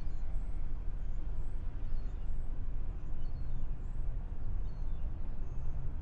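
Harbour ambience: a steady low rumble with faint, short high chirps scattered through it.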